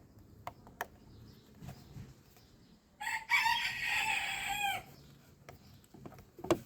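A rooster crowing once, a call of nearly two seconds that drops in pitch at the end. A short sharp click follows near the end.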